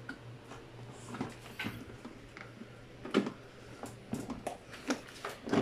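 Scattered light clicks and knocks of hands handling an Iwata Z10 air cooler's plastic body and power cord, over a faint steady low hum.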